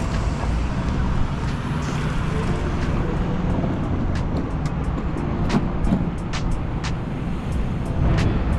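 Steady low road rumble of a moving car, with scattered light clicks in the second half.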